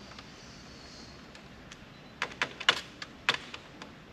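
Scattered light, sharp clicks and taps of a screwdriver bit and small plastic and metal laptop parts being handled, mostly in the second half, as a bit is tried in a laptop screw.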